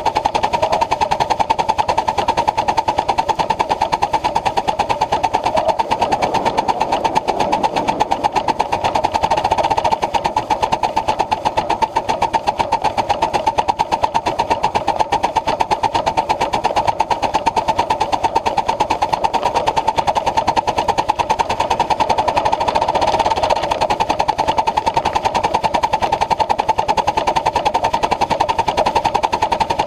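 Ride-on live-steam Pacific locomotive running on its track, heard from on board: a steady, fast, even clatter of its running gear and wheels.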